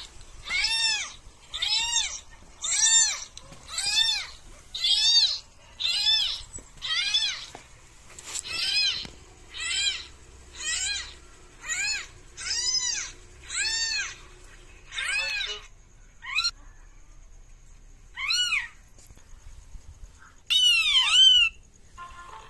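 Newborn kittens meowing, played from a smartphone's speaker: high, short mews, about one a second for the first fifteen seconds, then a few sparser ones, with one louder drawn-out call near the end.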